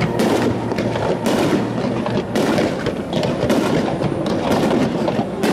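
Fireworks going off in quick succession: an irregular run of bangs and crackles, several a second, over a continuous rumble.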